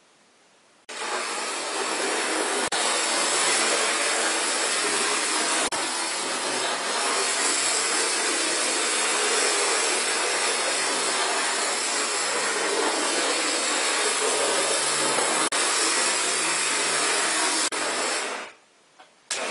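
Hornby OO gauge Class 37 diesel model running on its track: a steady whirring hiss from the motor and wheels, with a few clicks over the rail joints. It starts about a second in and cuts out near the end. The motor is freshly serviced and the wheels cleaned and oiled.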